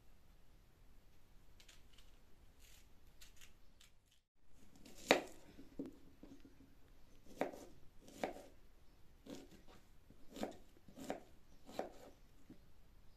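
Kitchen knife cutting through an onion onto a plastic cutting board: separate knocks of the blade on the board, roughly one a second, the first the loudest. Before that, faint clicks and scrapes of a knife peeling an onion held in the hand.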